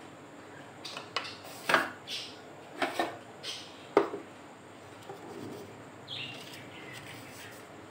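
Kitchenware being handled: a run of about eight clinks and knocks of utensils and containers, the loudest about two and four seconds in.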